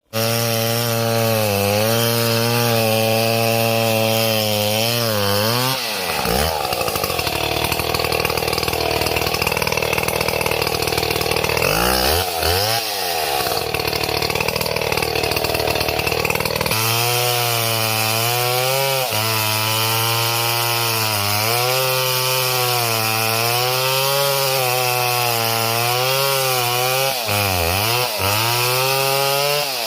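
Stihl MS 070 two-stroke chainsaw running hard while cutting a tree, its pitch wavering up and down under load. About six seconds in the revs sink low for roughly ten seconds, then jump back up.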